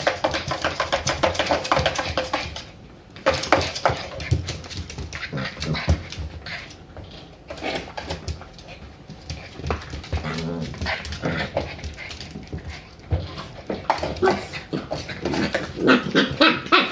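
Two three-month-old Shiba Inu puppies play-fighting, with short barks and yips over frequent scuffling clicks.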